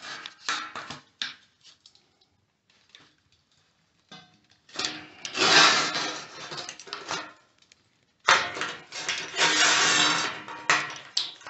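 Sheet-steel patch panel being bent with pliers along a scored line: metal noise in bursts, a few sharp knocks at first, then two longer noisy stretches about five and nine seconds in.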